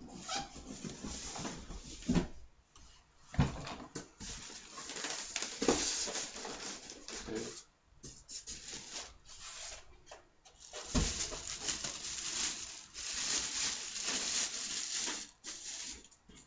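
Polystyrene foam packing pieces rubbing and knocking as they are pulled off a boxed PC case, with several sharp knocks, then the plastic bag around the case rustling in the second half.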